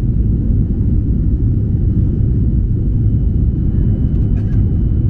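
Jet airliner cabin noise during the climb after takeoff: a steady low rumble of the engines and airflow, heard from inside the cabin at a window seat.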